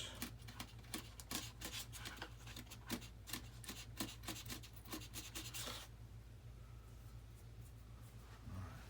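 Quick short strokes of a hand tool scraping and rubbing the model's foam as the high spots are trimmed smooth. The strokes fall off to fainter, scattered scrapes about six seconds in, over a faint steady low hum.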